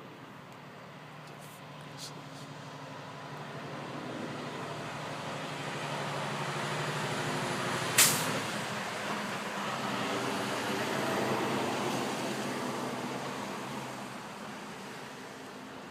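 A low, droning hum made of several steady pitched tones, growing louder over several seconds, peaking and then fading. A sharp click comes about halfway through.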